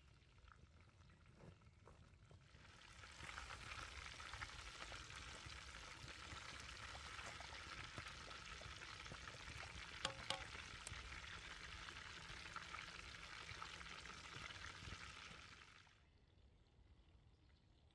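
Pork ribs deep-frying in hot oil, a steady crackling sizzle that comes in about three seconds in and cuts off around sixteen seconds. A couple of sharp clicks sound about ten seconds in.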